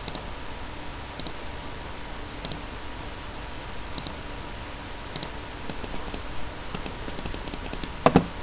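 Computer mouse and keyboard clicking: single clicks about every second or so, then a quick run of keystrokes near the end, followed by one louder knock.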